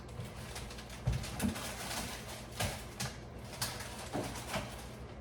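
Light knocks and clatter from household items being picked up and set down while a kitchen cabinet is cleared out, about seven irregular taps spread over a few seconds.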